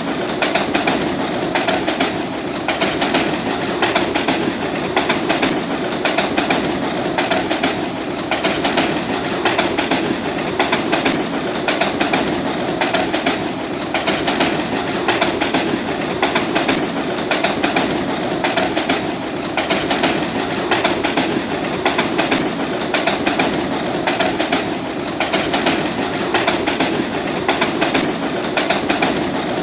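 SuperVia commuter train running steadily, its wheels clicking over the rail joints in repeated groups every second or two.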